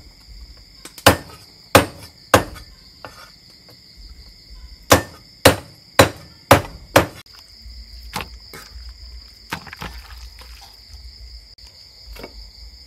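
Meat cleaver chopping raw chicken on a thick wooden chopping board: sharp heavy strokes, three and then a quicker run of five, each about half a second apart, followed by a few fainter knocks.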